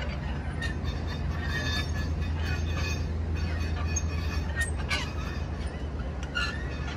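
The hand-cranked gearing of a twin-barrel anti-aircraft gun mount being turned by its handwheel: metal gears squeak and click irregularly over a steady low hum.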